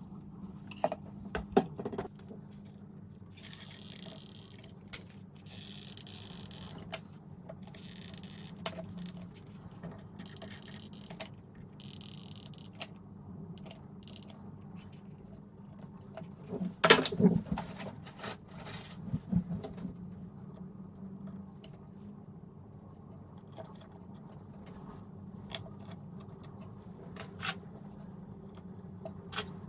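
Small objects being handled: scattered clicks, taps and light scrapes, with a cluster of knocks about halfway through and a few short hissing bursts in the first half, over a steady low hum.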